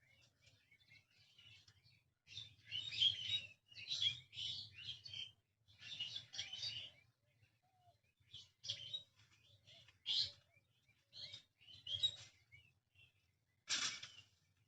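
Birds chirping in quick bursts of a second or less, one after another with short pauses between.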